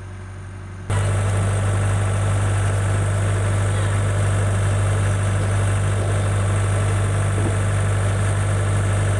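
An engine running steadily at idle with a strong low hum. It gets abruptly louder about a second in, then holds steady.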